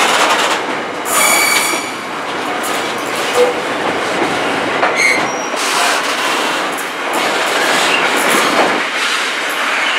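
Container wagons of a freight train rolling past, a steady noise of steel wheels on the rails, with brief high-pitched wheel squeals about a second in and again about five seconds in.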